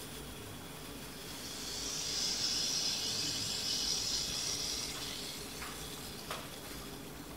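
Water jetting up through a glass nozzle into a flask of ammonia gas, drawn in as the ammonia dissolves (the ammonia fountain). A hiss swells about a second and a half in and fades after about five seconds. A couple of faint ticks come near the end.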